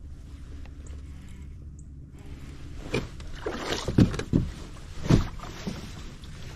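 Water sloshing and irregular hollow knocks against a fishing kayak's hull, starting about two seconds in, with the loudest knocks near the middle.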